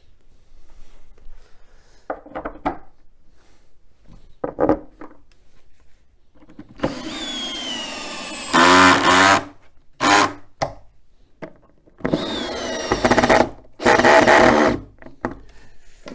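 Cordless drill driving screws into the shelf panels, after a few light handling clicks. It runs twice for a couple of seconds each, the motor's whine sinking slightly in pitch as the screw bites and turning louder as it seats. The owner says he almost stripped the screw, a risk with the drill's clutch set too high.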